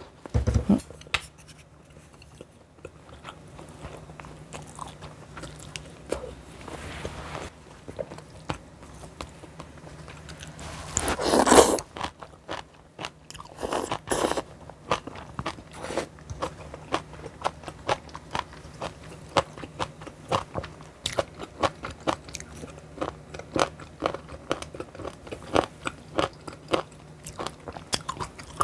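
Close-miked chewing and crunching of food, a quick run of small clicks about two to three a second. About eleven seconds in there is a louder, noisier sound lasting about a second.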